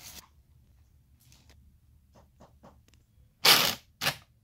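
A small plastic doll being handled against a plastic toy dollhouse: a few faint light clicks, then two short, loud scraping rustles near the end.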